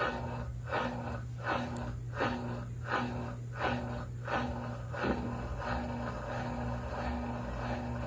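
Consul CWE13AB top-load washing machine agitating a load: rhythmic swish-and-hum strokes of the agitator churning the clothes, about one every 0.7 seconds, over a steady motor hum. The strokes grow weaker after about five seconds.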